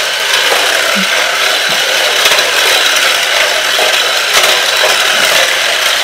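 Electric drive motor and plastic gearbox of a Smart Steer Lightning McQueen toy car running steadily as the car drives across a tile floor.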